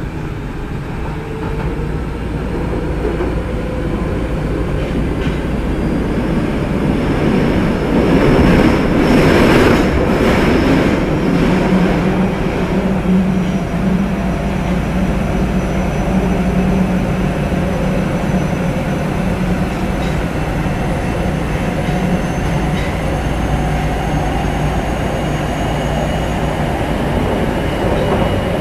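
A Nagoya Municipal Subway 2000 series train with a Mitsubishi GTO-VVVF inverter, heard from inside the car. The motor whine rises in pitch and the running noise grows louder as the train picks up speed. About nine seconds in there is a louder stretch of wheel and rail noise, then the train runs steadily under the loud air conditioning.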